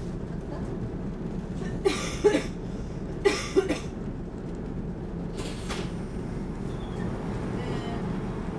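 Steady low hum inside the carriage of an SL X10 commuter train standing at a platform. A passenger coughs twice, in quick double bursts, about two and three and a half seconds in.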